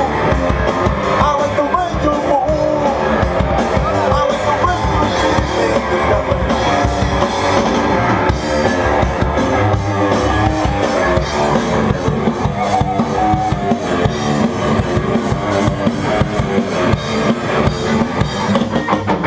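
Live rock band playing: electric guitars over a driving drum kit, at full volume throughout.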